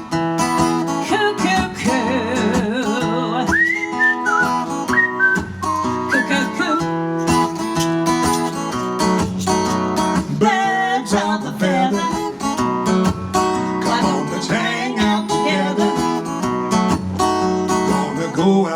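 Live band playing an instrumental intro: acoustic guitar strumming over a steady beat, with whistling that wavers and glides upward a few seconds in.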